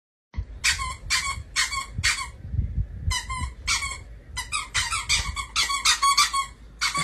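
A small animal's short, high-pitched squeaks in quick succession: four evenly spaced, a pause, two more, then faster runs of squeaks, over a low rumble.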